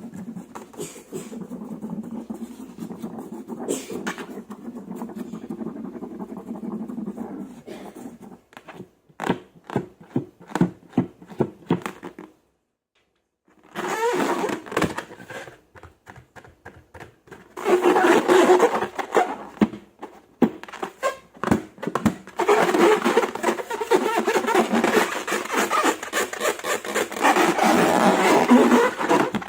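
Slime being squished and kneaded by hand, giving sticky clicks and pops, a short pause, then dense wet crackling.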